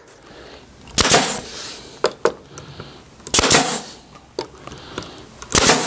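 Staple gun firing staples through a plywood panel into an oak frame: three sharp shots about two and a half seconds apart, with a few lighter clicks between.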